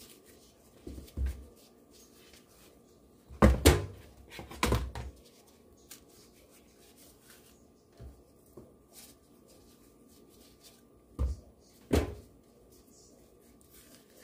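Bananas being peeled by gloved hands and put into a large white mixing bowl: scattered dull knocks and thumps against the bowl, the loudest a cluster about four seconds in and two more near the end.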